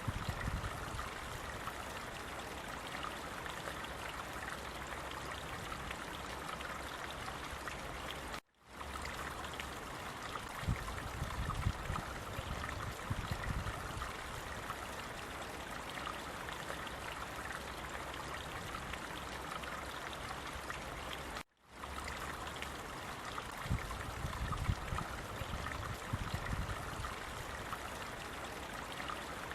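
Water flowing steadily, like a small stream, with occasional low rumbles. The sound cuts out abruptly for a moment twice.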